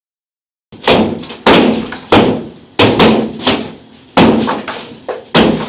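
Repeated heavy blows against an interior wall being demolished: about eight loud impacts, roughly two-thirds of a second apart, each with a short ringing decay. They start just under a second in.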